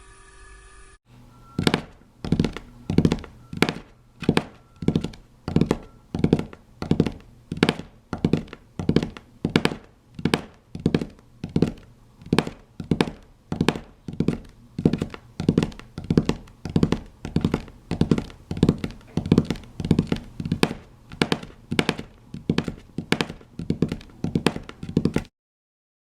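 A long run of evenly spaced thuds, about one and a half a second, each with a short ringing tail, then a sudden stop.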